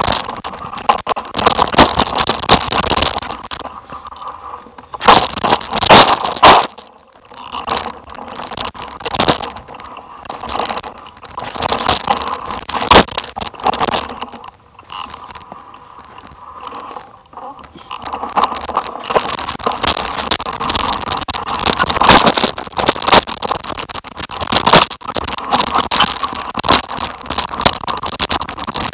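Uneven scraping and crackling noise of travel down a rocky dirt trail, with sharp knocks now and then and a few quieter stretches.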